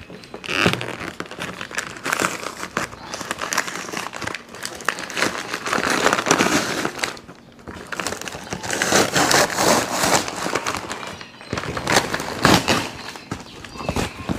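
Wrapping paper and a mailing envelope crinkling and rustling as they are pulled apart by hand, in a string of uneven bursts. The loudest come about six seconds in and again around nine to ten seconds.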